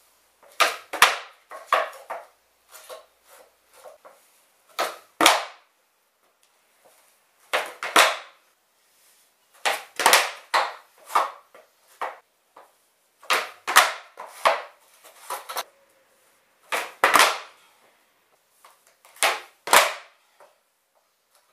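Skateboard tricks on a concrete floor: the wooden tail snaps against the ground and the board and wheels clack back down on landing. The sharp clacks come in pairs or small clusters every couple of seconds, about eight tricks in all.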